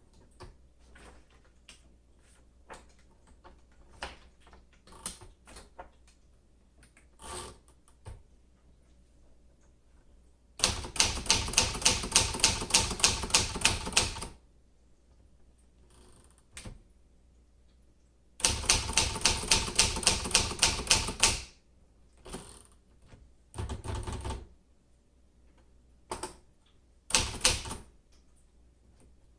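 1957 Remington Rand Quiet Riter manual typewriter worked by hand: scattered light clicks at first, then runs of quick, evenly spaced key strokes lasting a few seconds each, with shorter bursts near the end.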